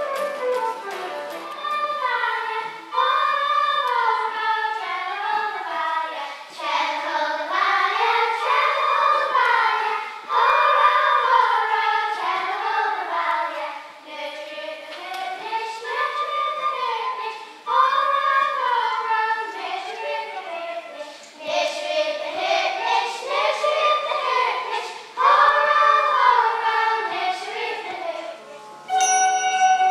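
Children's choir singing a flowing melody together, with short breaks between phrases. Near the end, tin whistles come in with steady held notes.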